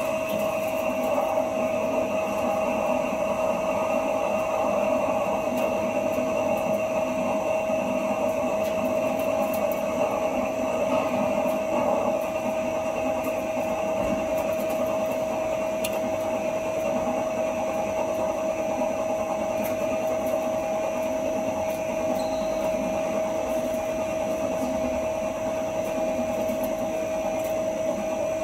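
CK0640 CNC lathe running, its spindle turning a metal bar while the gang tool cuts it, making chips: a steady whine over an even mechanical hum that does not change.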